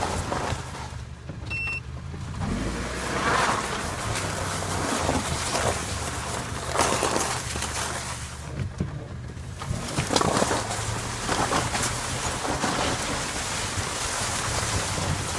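Squeaking and creaking from a third-generation Honda CR-V's front end as the steering wheel is turned to the left, a fault symptom, heard as repeated creaks every few seconds with a brief high squeal about one and a half seconds in. The engine runs steadily underneath.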